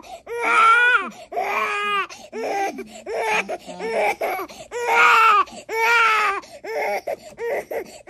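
Baby crying hard in a string of repeated high wails, each about half a second to a second long, in distress at a vaccination.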